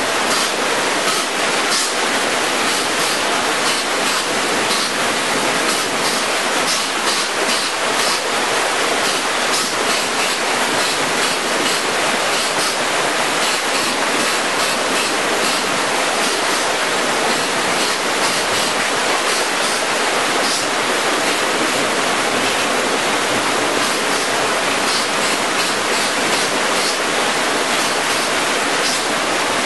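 Outburst flood water rushing through the breach in an overtopped sand dam and pouring down a flume: a steady, dense splashing rush.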